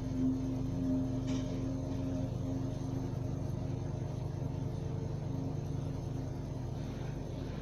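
Steady low mechanical hum, with a faint click about a second in.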